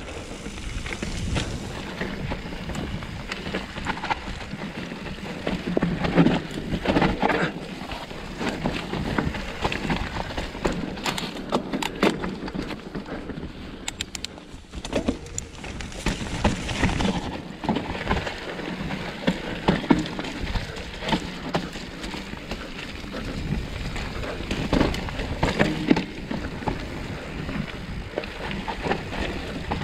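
Trek Slash 8 full-suspension mountain bike descending a wet, muddy trail: tyres rolling over dirt and rock, with irregular knocks and rattles from the bike.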